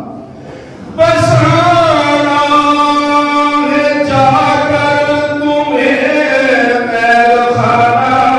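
A man reciting a noha, an Urdu mourning elegy, in a solo chanting voice into a microphone, holding long notes that glide slowly up and down. The voice comes in after a short pause about a second in.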